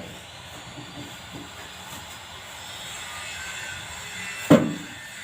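Water running steadily from a kitchen tap while tomatoes are washed, with one loud knock near the end.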